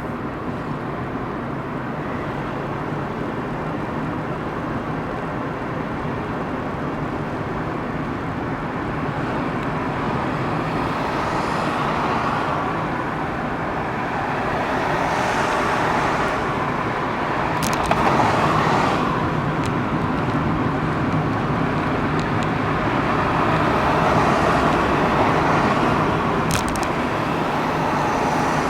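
Car under way: steady engine and road noise that swells and eases several times, on a car whose muffler is due for repair.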